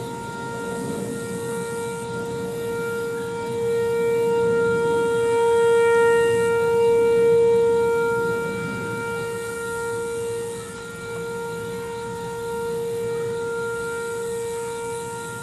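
Whelen 4004 electronic outdoor warning siren sounding a steady alert tone, one unchanging pitch with overtones, swelling louder around the middle and fading again.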